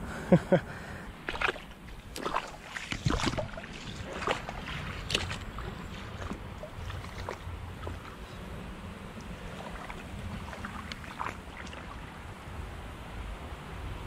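Creek water and wind on the microphone giving a steady low rumble, with a few sharp clicks and knocks in the first five seconds, likely rod-and-reel handling.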